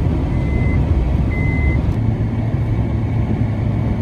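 A car's steady low rumble of engine and road noise, with an electronic warning chime beeping twice, about a second apart, then stopping.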